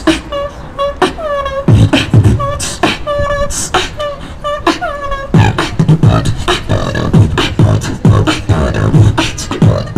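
Live street music performance: short repeated vocal notes over clicking percussion, with a deep drum beat joining about five seconds in.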